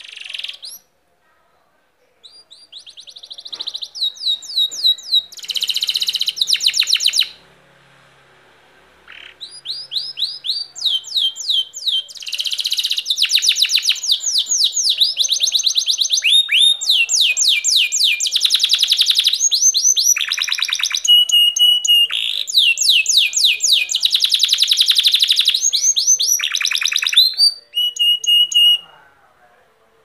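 Domestic canary singing a long song of rapid trills. Each phrase is a fast run of repeated falling notes, and a few short steady whistled notes come in between. The song breaks off for about two seconds early on, then runs almost without a pause until just before the end.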